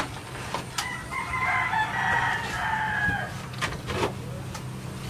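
A rooster crowing once, a long call of about two seconds starting about a second in, with a few light knocks around it.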